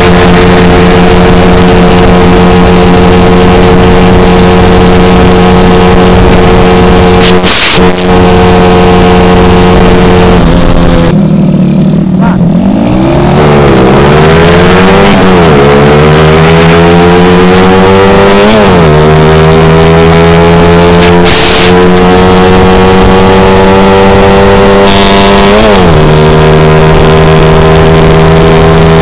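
Suzuki Shogun motorcycle's single-cylinder four-stroke engine at high revs under way, heard from the rider's seat. The pitch holds steady for about ten seconds, drops away, then climbs again, with brief dips in pitch three times in the second half before it levels off.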